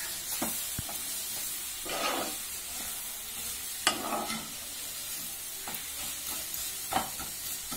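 Chopped green amaranth leaves and rice sizzling in a frying pan as a spatula stirs and scrapes them. Several sharp clacks of the spatula against the pan stand out over the steady sizzle, the loudest about four seconds in and another about seven seconds in.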